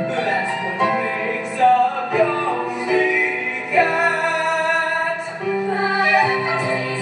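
Female voices singing a musical-theatre number over instrumental accompaniment.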